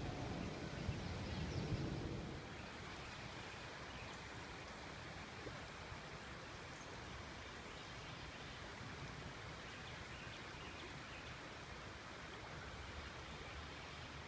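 Faint, steady outdoor noise of flowing canal water. A louder low rumble fills the first two seconds and stops abruptly.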